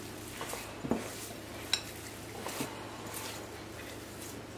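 Hands kneading a ball of mozzarella and almond-flour fathead dough in a glass mixing bowl: soft handling noise with about four light knocks against the glass, over a faint steady hum.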